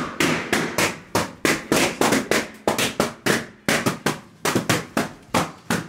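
Rapid series of sharp bangs from rubber balloons, about three a second, evenly spaced.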